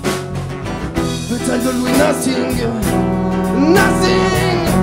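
A live band playing, with electric bass, guitar and horns. About a second and a half in, a lead melody line comes in whose notes bend and glide in pitch.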